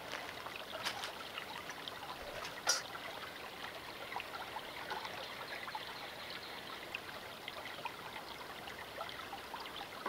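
Creek water flowing with a steady trickling hiss. Two light clicks break through it, about a second in and again near the three-second mark.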